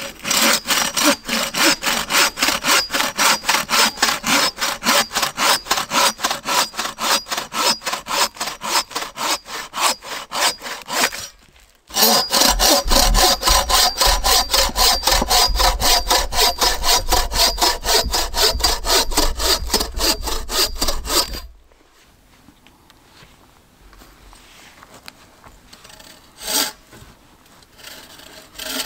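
Bow saw cutting through a log by hand in quick back-and-forth strokes, about three a second, with a brief pause about twelve seconds in. The sawing stops about two-thirds of the way through, leaving quieter handling sounds and a single knock.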